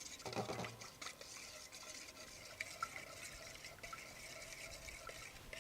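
Faint stirring of spiced coconut milk as it warms in a pan on the stove, with a few light ticks.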